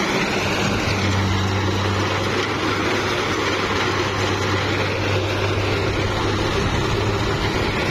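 An engine running steadily at an even speed, with a constant low hum.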